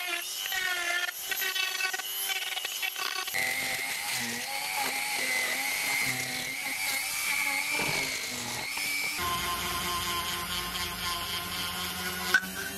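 High-pitched whine of a small handheld rotary tool (Hilda mini drill, a Dremel-type tool) grinding and sanding wood with carving and sanding-drum bits. Its pitch changes about three seconds in and again about nine seconds in. Background music plays underneath.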